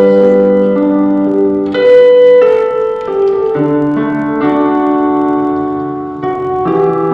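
Keyboard playing slow, sustained chords that change about every second or so, piano-like in tone.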